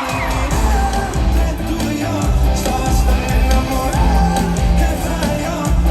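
Live pop band playing at a concert, with singing over a steady bass beat and some crowd yells.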